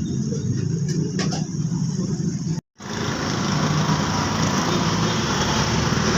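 Car engine running steadily at idle. The sound cuts out completely for a moment about two and a half seconds in, then returns louder and with more hiss.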